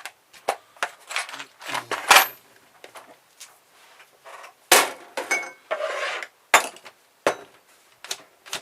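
Metal hand tools clinking, tapping and knocking against a car stereo's metal casing during disassembly, irregular sharp clicks with a few short scrapes.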